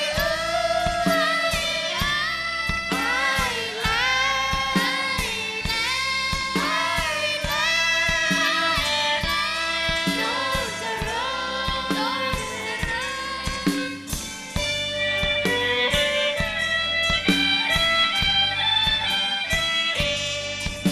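Live performance of a Thai song: a woman singing a melody over violins and a band with a steady beat, turning to an instrumental passage led by violin and a woodwind about two-thirds of the way through.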